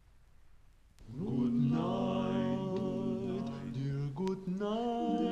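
A cappella barbershop quartet singing held chords in close harmony, starting about a second in.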